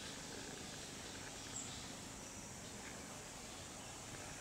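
Faint natural outdoor ambience: a steady hiss of insects and background wildlife, with a single brief high chirp about one and a half seconds in.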